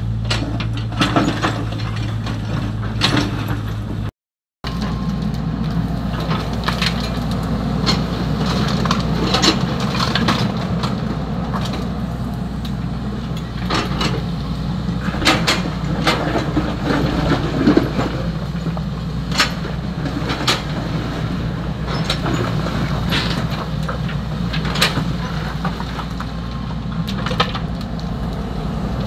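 XCMG 75 excavator's diesel engine running steadily under load, with many sharp clacks and rattles of sand and gravel as the bucket digs and dumps. The sound drops out briefly about four seconds in.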